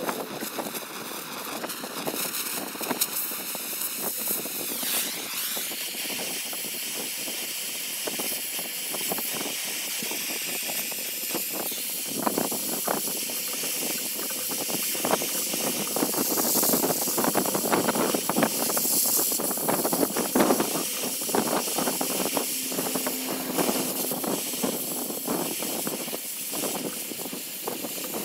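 Blow torch flame hissing steadily while it widens bolt holes in the steel trailer tongue. From about twelve seconds in, the molten steel crackles and pops over the hiss. A high whistle sounds in the first few seconds and drops away.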